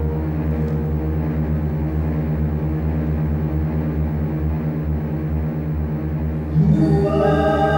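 Dark, sustained drone of dramatic background score music. About six and a half seconds in, a swell and brighter ringing held tones come in over it.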